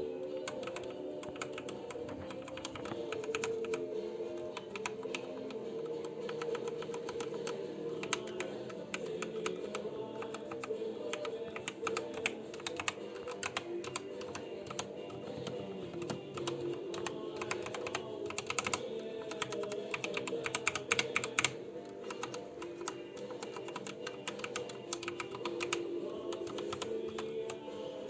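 Typing on a ZET Blade Pro mechanical keyboard with Kailh Red optical linear switches: a steady run of key clacks, in faster, louder flurries around the middle, over background music.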